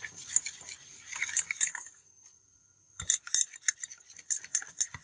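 Wire whisk beating batter in a stainless steel bowl, its wires clinking rapidly against the metal sides. The whisking stops for about a second in the middle, then starts again.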